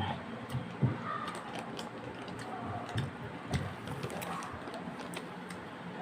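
Close-miked chewing of a filled doughnut: soft wet mouth clicks and smacks, with a few louder ones scattered through.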